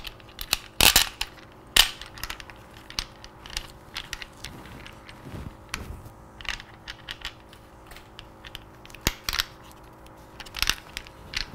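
Small metal hardware clicking and clinking as it is handled during a case-saver install: bolts, washers and nuts knocking against each other and against the parts. Two sharper knocks come about one and two seconds in, followed by scattered lighter clicks.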